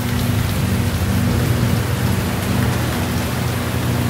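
Steady rainfall, with a low rumble of thunder swelling through the middle, over a low steady hum.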